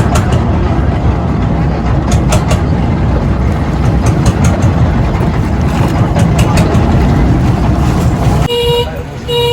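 Loud, steady rumble of a moving vehicle, then a horn honking two short toots near the end.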